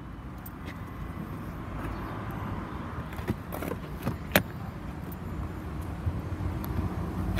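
Steady low rumble, with a few light clicks and knocks as a hand handles the front seat's headrest. The sharpest knock comes a little past the middle.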